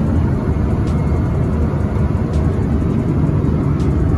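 Steady low rumble of a Boeing 777-300ER's cabin in cruise: airflow and engine noise heard from inside the lavatory.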